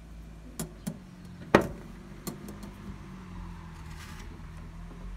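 Metal letter-slot flap in a door clicking and clacking as it is pushed and swung: two light clicks, then one sharp loud clack about a second and a half in, and a lighter click after it, over a faint steady hum.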